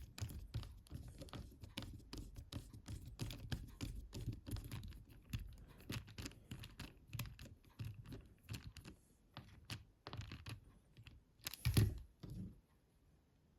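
Small Torx screwdriver driving a screw into a mobile phone's plastic housing: a rapid series of small clicks and scratches as the bit turns. There is a louder knock near the end, then the clicking stops.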